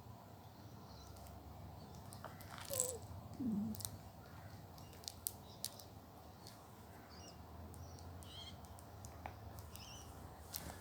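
Faint clicks and taps of baby toys being handled by a baby flying fox. The loudest cluster comes about three seconds in. A few short high chirps follow in the second half.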